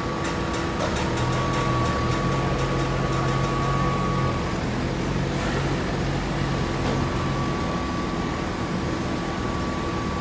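Hydraulic baling press running: a steady machine hum with a few held tones, and a run of quick clicks over the first four seconds or so.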